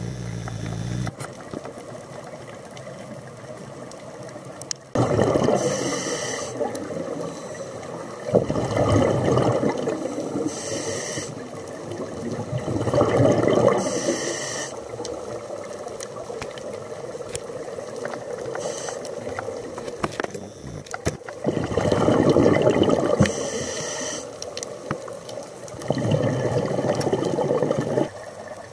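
Scuba diver breathing through a regulator underwater: several long surges of exhaled bubbles, with short hissing intakes of breath between them.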